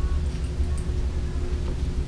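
Steady low hum with one constant tone running through it, and a few faint light clicks from small metal air-rifle trigger parts being handled.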